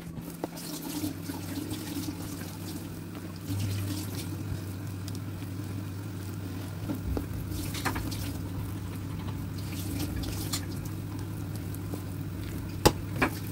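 Sticky yeast dough being kneaded by hand on a silicone mat, giving wet squishing and slapping sounds, over a steady low hum. A few sharp clicks come through, the loudest near the end.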